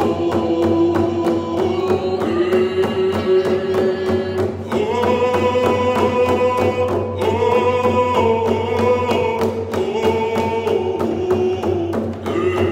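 Group of voices singing a chant together, holding long notes, over round hide hand drums struck in a steady, even beat.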